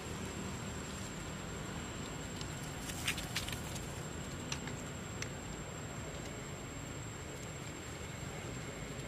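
Steady outdoor background hiss with a thin, high steady whine, broken by a few short soft clicks: a little cluster about three seconds in and two single ones a second or two later.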